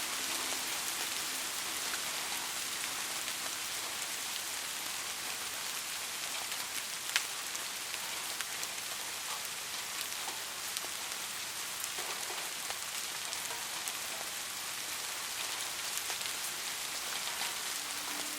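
Steady rain falling, an even hiss scattered with small drop ticks; one sharper drop stands out about seven seconds in.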